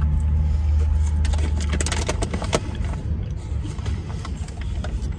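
Close-up chewing of a bite of fried chicken sandwich, with short crisp crunches for a second or two after the bite, over a steady low hum inside the car.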